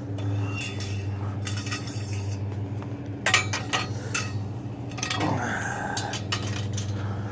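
Light scrap metal pieces clinking and clattering as they are handled and dropped, in several short bursts. A steady low engine hum runs underneath.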